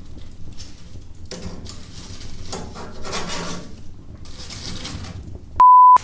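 Bursts of rustling and scraping from the roasting sweet potatoes being handled, then a short, loud, steady electronic beep near the end.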